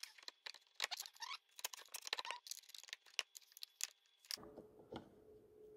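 Scattered light clicks, ticks and rattles of metal parts being handled during lawn tractor steering work. About four seconds in, a low rubbing or scraping noise joins them.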